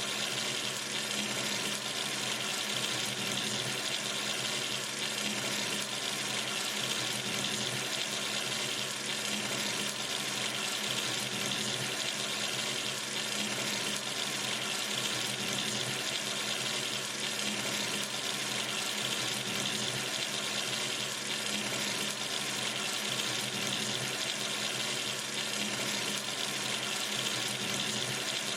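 Water running steadily from a sink tap, a constant splashing hiss.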